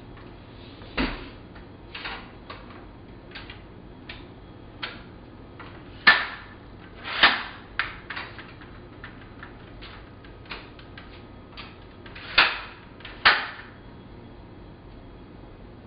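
Irregular knocks and clacks of hard objects on a workbench, a dozen or more short ones, with five louder clacks: one about a second in, two around six to seven seconds, and two near the end.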